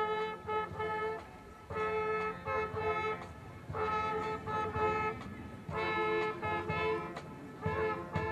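School marching band's brass playing a series of held chords, each about a second and a half long, with short breaks between them.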